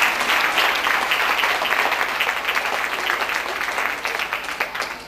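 Audience applauding, a steady patter of many hands clapping that fades away near the end.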